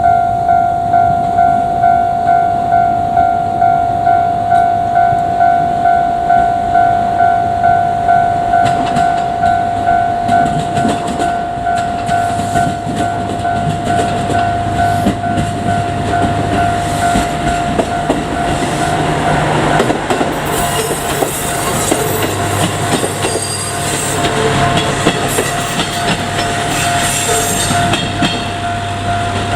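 A Japanese level-crossing warning bell rings steadily at about two strokes a second throughout. From about nine seconds in, a JR Kyushu KiHa 200 diesel railcar comes up and passes, with its engine running and its wheels clattering over the rail joints. There is a loud hissing, squealing rush between about 20 and 28 seconds.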